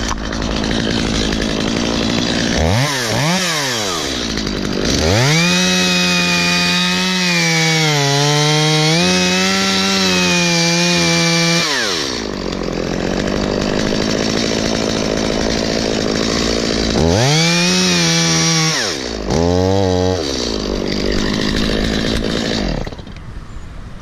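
Stihl MS 250 two-stroke chainsaw idling and revved once, then held at high revs for about seven seconds with the pitch sagging and recovering, as the chain cuts into the palm trunk. It drops back to idle, revs up again with two quick blips, and cuts out shortly before the end.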